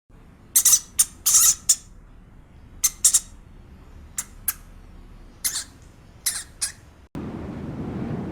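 A run of short, sharp, high-pitched chirps or squeaks from a small bird or animal, about a dozen, some coming in quick pairs. Just after seven seconds they stop abruptly and a steady rushing noise like wind on the microphone takes over.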